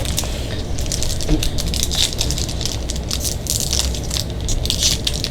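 Foil booster-pack wrappers and trading cards being handled, giving an irregular run of crinkles and crackles over a steady low hum.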